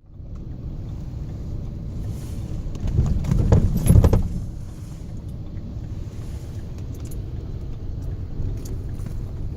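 Car driving: a steady low rumble of engine and road noise that swells for a moment about three seconds in, with a few light clicks or rattles.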